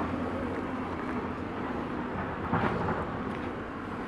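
Heavy diesel machinery running outdoors: a steady low engine drone with a hum, and a brief louder rush about two and a half seconds in.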